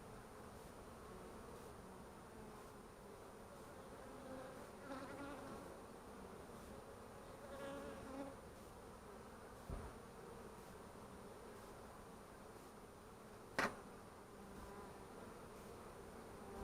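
Honeybees buzzing faintly around an opened hive, swelling louder briefly twice. A single sharp click stands out about two-thirds of the way through.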